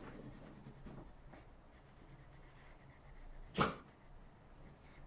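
Colouring pencil scratching faintly on paper, with one brief knock about three and a half seconds in.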